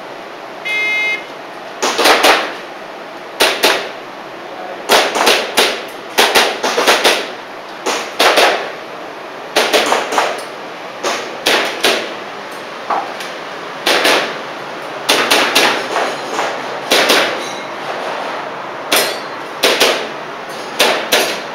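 A shot timer's start beep, then a string of airsoft pistol shots fired in pairs and quick runs with short pauses between groups, about thirty shots in all: a shooter running an IPSC Action Air course of fire.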